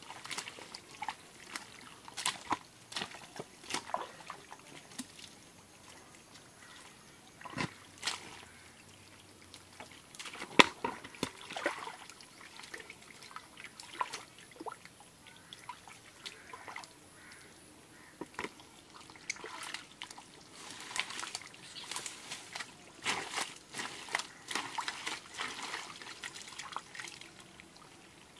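Hands groping and scooping through thick wet mud and shallow muddy water, hunting eels in their holes: irregular squelches, sloshes and small splashes, thickest near the end, with one sharper slap about ten seconds in.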